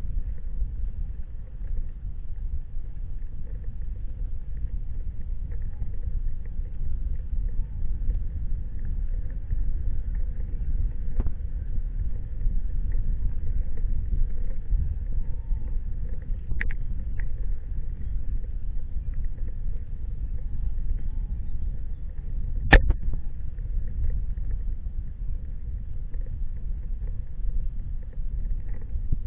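A moving vehicle's steady low rumble, with one sharp click about 23 seconds in.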